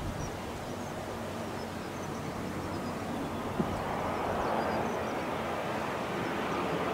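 Jet engine noise of an Airbus A321 airliner on landing approach: a steady rushing sound that grows louder about four seconds in as the aircraft draws nearer. A brief knock about three and a half seconds in.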